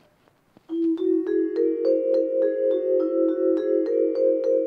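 Short mallet-percussion music sting marking a scene change. It starts just under a second in, after a brief near-silent gap, with quick struck notes at about four a second over held low notes.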